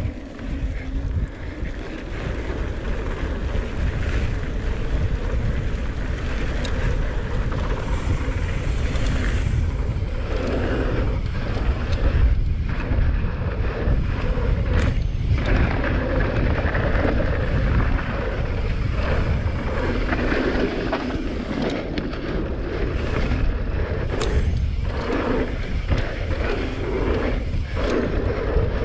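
Wind buffeting an action camera's microphone over a steady rumble of tyres rolling on a dirt trail as a mountain bike descends at speed, the rush easing briefly a few times.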